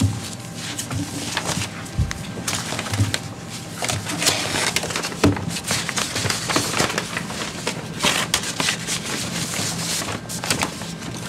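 Paper rustling and handling: a bid envelope and sheets being opened and shuffled, with scattered small clicks and knocks, thickest in the middle, over a faint low steady hum.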